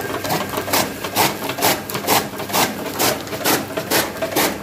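Electric chaff cutter running, with a steady motor hum and its blades chopping green fodder being fed in, a crisp cut about twice a second. The slipped drive belt has been refitted, and the machine is working again.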